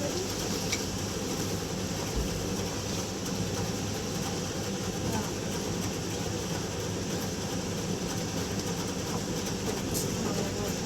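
A steady low rumbling noise with no clear rhythm or separate events, with faint voices in the background.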